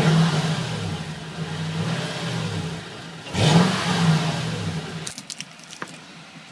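Car engine running and revving while backing out, with a second rise in revs a little over three seconds in. The engine sound stops about five seconds in, followed by a few light clicks.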